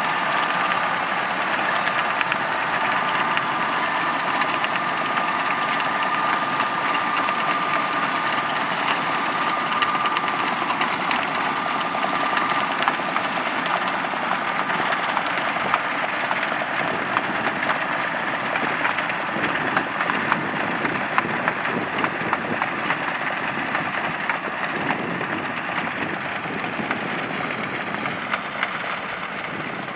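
Tractor engine running under load with a manure spreader working: a steady mechanical din full of fine crackling ticks, with a thin high whine that fades out about halfway.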